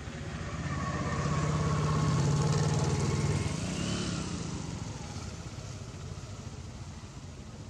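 A motor vehicle passing on the road: its engine hum grows louder over about two seconds, holds, then fades away.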